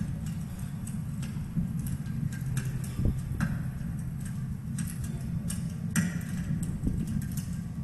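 Scattered sharp clicks and taps at irregular intervals over a steady low rumble.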